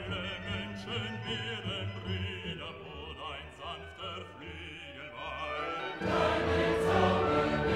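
Classical background music with a singing voice in wide vibrato. It grows louder and fuller about six seconds in.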